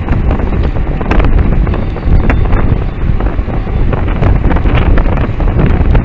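Heavy wind buffeting on the microphone of a camera mounted on a moving road bicycle, with scattered sharp ticks through it.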